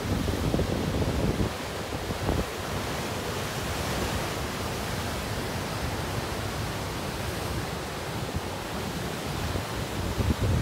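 Ocean surf washing steadily, with wind buffeting the microphone in gusts during the first couple of seconds and again near the end.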